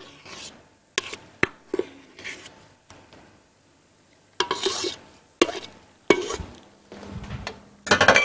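A spatula scraping and knocking against a stainless-steel stand-mixer bowl as the whipped cream and cheese mixture is scraped out, in short irregular strokes with a few sharp taps.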